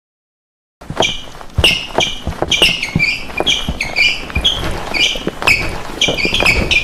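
Thuds and squeaks of several dancers' feet stomping and shuffling on a hard floor, with no music. Starts suddenly about a second in, a quick irregular run of knocks with short high squeaks between them.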